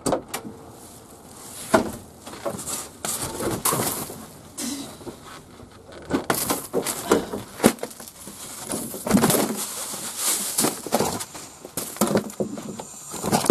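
Irregular knocks, bumps and clatter of loose items and a wooden board being shifted around in the cargo area of a small van, with a couple of sharper bangs.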